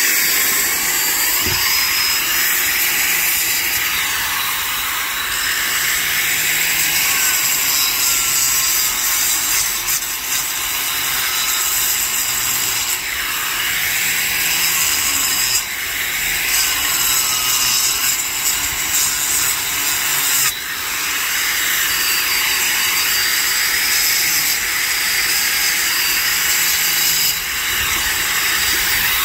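Angle grinder cutting out a mortar joint between concrete blocks: a steady, loud grinding screech of the disc in the mortar, with a couple of brief dips about halfway through.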